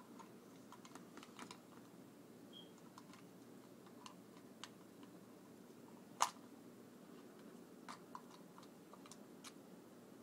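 Faint scattered clicks and taps over quiet room tone, with one sharper, louder tap about six seconds in.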